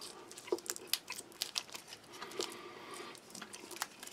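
Thin plastic wrapper crinkling and crackling in quick irregular clicks as a sticky nougat bar is pulled and peeled off it by hand.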